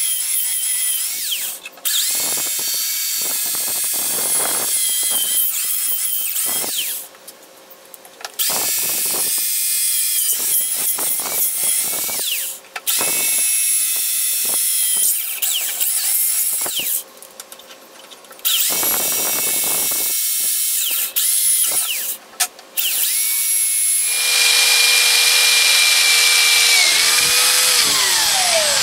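Handheld electric drill boring pilot holes through eighth-inch steel plate. The motor whine runs in spells of several seconds, with short pauses between holes. Near the end it runs louder and steadier, then winds down in a falling whine.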